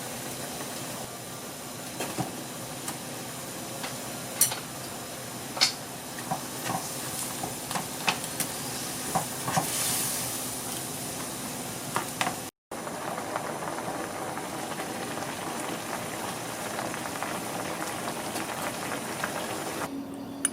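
Food sizzling in a pan with a steady hiss, with scattered light taps and clinks of a utensil against the pan. The sound cuts out briefly a little past the middle.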